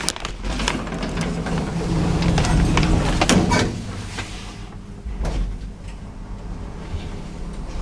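Lift's sliding doors closing and the car setting off, with rattling, a steady mechanical noise and clicks for about three and a half seconds, then quieter running with a few clunks.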